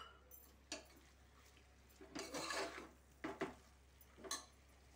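Steel slotted spoon stirring curd into vegetables in a pressure cooker: a few sharp clinks of the spoon against the pot and a short stretch of scraping a little after two seconds in.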